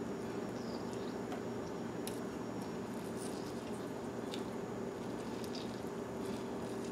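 Lime halves squeezed by hand, with faint squishes and drips of juice into a food processor bowl, over a steady low hum of room noise.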